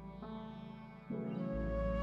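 Meditative instrumental background music: a steady low drone with plucked string notes. A louder, held melodic note comes in about a second in.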